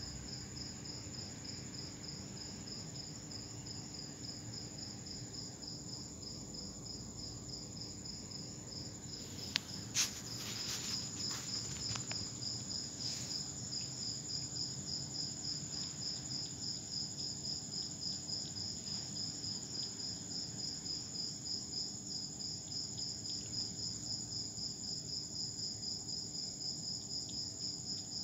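Crickets chirping at night: a steady high trill with a regular pulsing chirp over it. A few sharp clicks come about ten seconds in.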